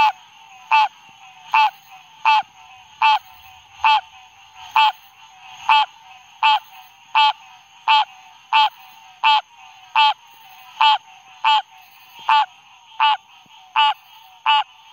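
American green tree frog (Florida green tree frog) calling: short calls repeated steadily about every three-quarters of a second, given by a male with his vocal sac inflated.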